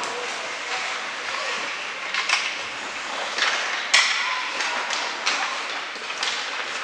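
Youth ice hockey play in an arena: sharp clacks of sticks and puck, the loudest about four seconds in, over steady rink noise with faint crowd voices.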